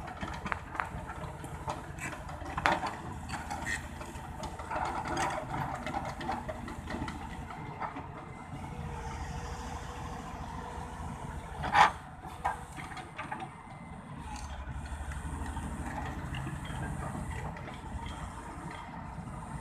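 An engine running steadily, with scattered clanks and clicks throughout and one loud knock about twelve seconds in.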